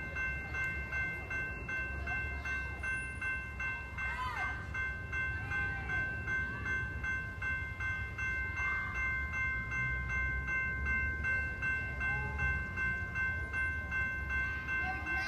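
Railroad grade crossing bell ringing with rapid, evenly spaced strokes that sound a train on the approach, over a low background rumble.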